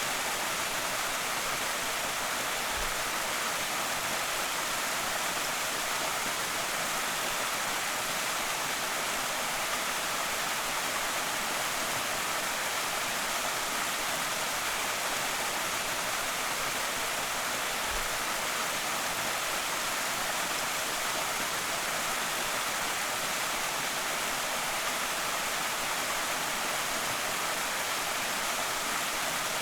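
Creek waterfall: water pouring and splashing in a steady, even hiss, mostly high and with little low rumble.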